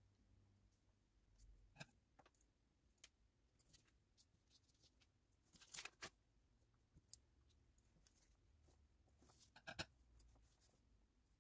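Near silence, with a few faint, soft ticks and rustles of hands folding and pinching puff pastry parcels on baking paper, a little more of them about halfway through and near the end.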